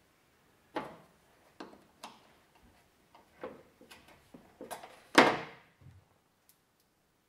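Small tools and parts knocking and clacking on the plastic tray of a wheel balancing machine as they are handled and set down: a series of light, separate knocks, the loudest a little over five seconds in with a short ring after it.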